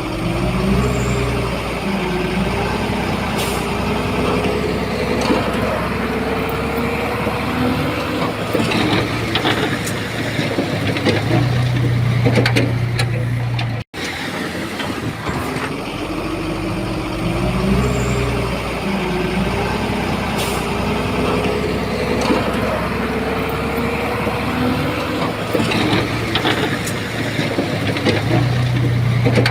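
Heavy diesel engine of a Shantui bulldozer working under load, its pitch rising and falling, with a few sharp knocks. The same stretch of about fourteen seconds plays twice, with a sudden brief dropout about halfway.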